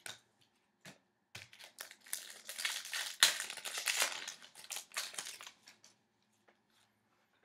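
Trading-card packaging crinkling and rustling in irregular bursts as cards are handled, for about four and a half seconds from about a second and a half in.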